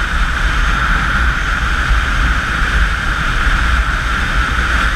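Steady wind rush over the microphone of a camera on a motorcycle cruising at highway speed, with a deep, constant buffeting rumble and road and engine noise blended in.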